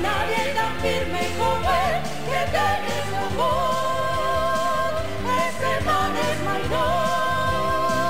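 Gospel-style song in Spanish: a solo voice sings the melody over a band, with long held, wavering notes near the middle and near the end.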